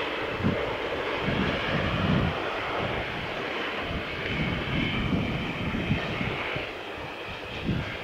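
Steady rushing outdoor noise with irregular low gusts of wind buffeting the microphone every second or so.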